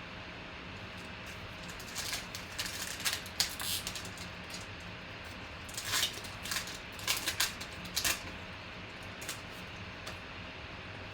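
Trading cards being handled and flicked through: two clusters of quick papery flicks and rustles, one about two seconds in and one about six seconds in, over a steady low room hum.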